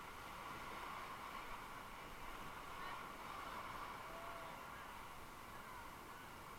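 Faint steady rush of river water around a drifting raft, with a brief faint tone about four seconds in.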